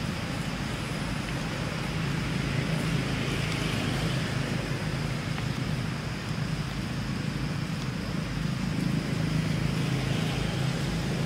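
Steady low hum and rumble of outdoor background noise, with no separate events standing out.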